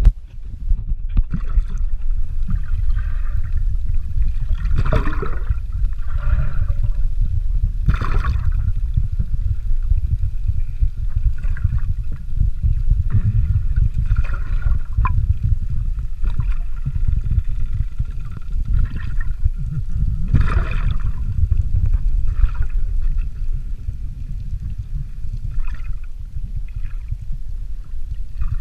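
Water heard from a submerged camera: a steady, muffled low rumble of water moving against the camera. Bursts of gurgling bubbles come every few seconds.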